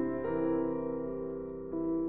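Calm piano music with held notes, a new chord struck about a quarter second in and another near the end.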